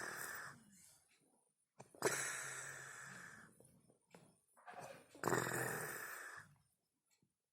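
A woman snoring in her sleep, one snore about every three seconds: the end of one, then two full snores of about a second and a half each, each starting sharply and fading away.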